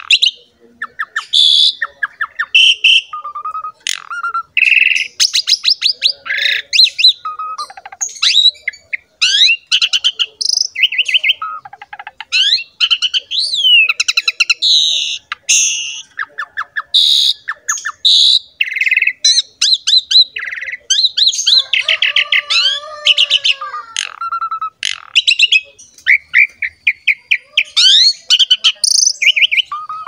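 Asian pied starling (jalak suren) singing a loud, almost unbroken, varied song of rapid rattling chatter, squeaky notes and short whistles.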